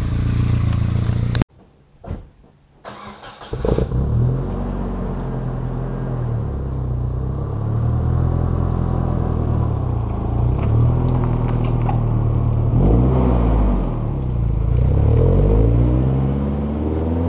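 Nissan 240SX's single-cam KA24 four-cylinder engine running steadily, cutting out briefly about a second and a half in. It comes back revving as the car pulls away, its pitch rising and falling several times. It runs well on freshly fitted NGK spark plugs and wires.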